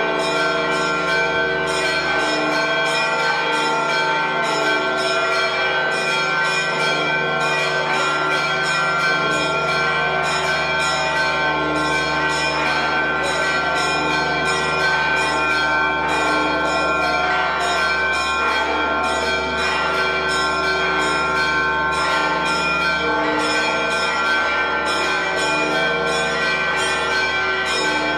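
Church bells ringing in a fast, unbroken peal, many bells struck over and over so their tones overlap into a continuous clangour. It is festive ringing, the kind that greets the coming out of the Holy Fire.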